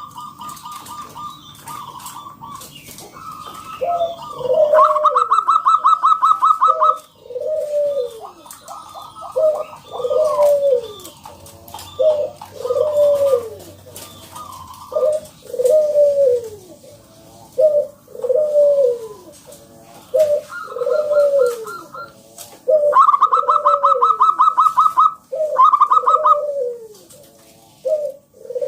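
Local zebra dove (perkutut) singing: a steady run of short falling coos, about one a second, broken by bursts of fast rattling higher notes, the loudest bursts about five seconds in and again near the end.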